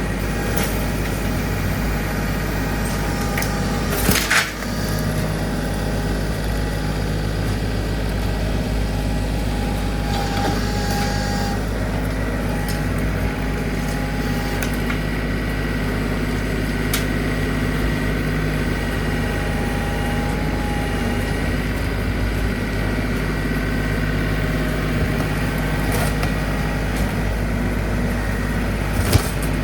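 An engine running steadily at a constant speed, with two sharp knocks, one about four seconds in and one near the end.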